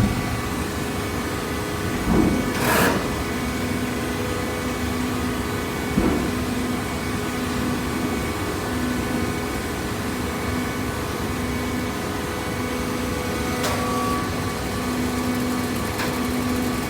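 Industrial hydraulic waste-paper baler running: the steady noise of its motor and hydraulic pump, with a low tone pulsing on and off about once a second. A sharp hiss comes about two to three seconds in, and a few knocks follow later.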